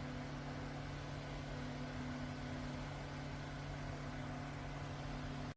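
Small cordless desk fan running: a steady rush of air over a low motor hum, cutting off abruptly at the very end.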